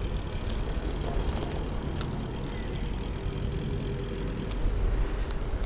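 Steady low rumble of riding noise from a gravel bike moving through town: wind on the action camera's microphone and tyres on the road. A faint high whine runs under it and stops about four and a half seconds in.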